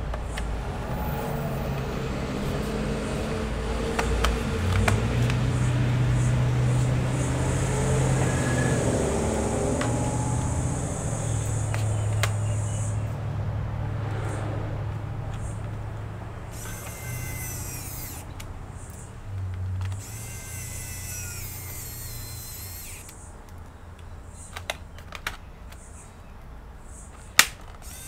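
Small power tool, likely an electric screwdriver, running with a motor hum that shifts in pitch, followed by a few sharp clicks near the end.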